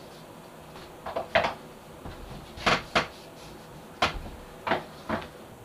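Wooden knife-holder pieces knocked and set down on a wooden workbench: about seven sharp knocks, some in quick pairs.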